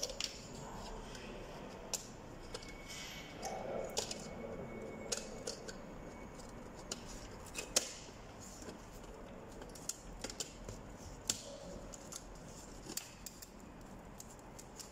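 Plastic housing of an exit-sign light box being handled and its cover pieces pressed and snapped into place by hand: scattered light clicks and knocks of plastic parts.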